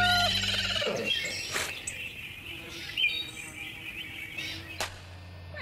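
Background music ending about a second in, then birds chirping now and then in the open air.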